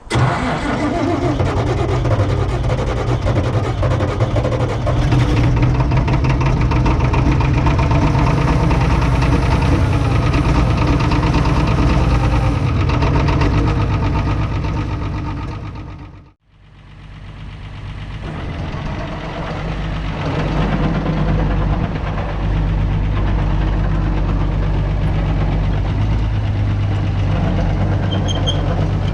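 Diesel engine of an International TD6 crawler dozer running with a steady knocking clatter, just after a glow-plug start.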